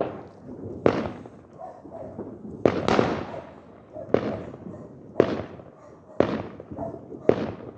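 Firework bangs going off one after another, about one a second, each with an echoing tail.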